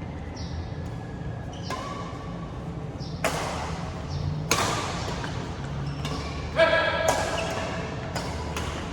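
Badminton rackets striking a shuttlecock in a rally: a series of sharp hits, irregularly spaced about a second apart, each ringing briefly in a large hall.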